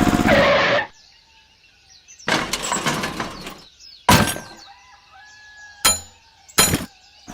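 A steady motor hum cuts off about a second in. It is followed by a clattering crash of breaking, then three sharp cracks spaced a second or two apart.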